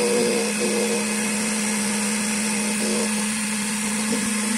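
Computerised key-cutting machine's milling cutter running steadily, cutting the bitting into a brass car key blank clamped in its jaws. Over a constant motor hum, the cutting tone swells briefly near the start and again about three seconds in.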